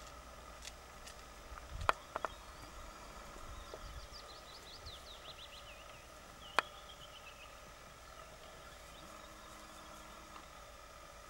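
Quiet garden ambience in which a small songbird sings a short phrase of quick, falling whistled notes, with a few sharp clicks about two seconds in and once more midway.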